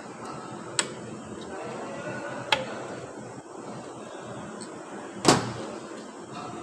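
Metal parts and snap-ring pliers clicking and knocking against an open CVT transmission case during reassembly: three sharp metallic knocks, the loudest about five seconds in with a brief ring, over steady background noise.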